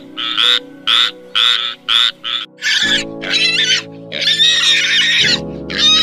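A frog croaking in an even series of short calls, about two a second, then from about halfway pigs grunting and squealing, with one longer squeal, over soft background music.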